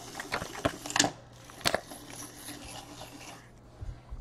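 Baseball card pack wrapper crinkling and crackling as it is torn open and the cards are handled, with sharp crackles through the first couple of seconds, then softer rustling that dies away.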